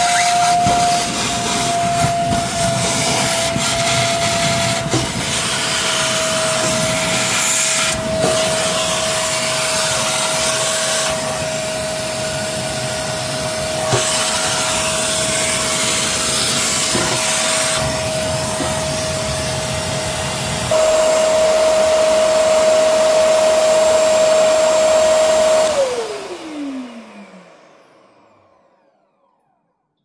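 Ferrex F-WDV30P 1200 W wet-and-dry vacuum cleaner running, its hose nozzle sucking up water from a stainless steel sink, with a steady motor whine over a rushing noise. About 21 seconds in the low rushing drops away and the whine gets louder. About 26 seconds in it is switched off, and the motor whine falls in pitch as it spins down to silence.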